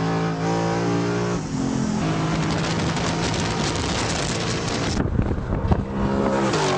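Lexus performance car engine running hard at high revs, its pitch stepping up and down with gear changes. A rush of wind and tyre noise covers it in the middle, and the revs fall away near the end.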